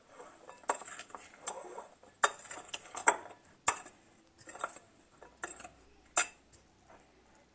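A spoon clinking and scraping against a bowl in irregular knocks as boiled potatoes and peas are stirred together with spices for achar.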